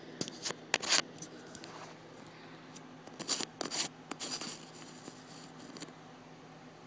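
Handling noise from fingers working a lens attachment right at the phone: short scrapes and clicks just after the start and again about three to four seconds in, then quieter.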